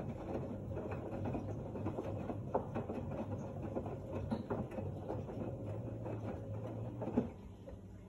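LG F1289TD direct-drive front-loading washing machine tumbling wet laundry: a steady low motor hum with water sloshing and irregular soft knocks from the clothes in the drum. About seven seconds in there is a sharper knock and the sound drops off as the drum stops turning.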